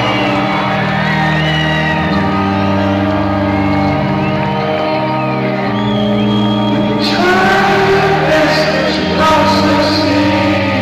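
Live band in a large arena playing slow, held keyboard chords that change every couple of seconds. Audience shouts and whoops ride over the chords and grow busier in the second half.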